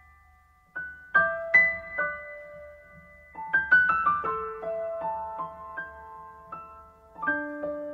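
Slow, gentle piano music: single notes and soft chords struck and left to ring out, starting about a second in.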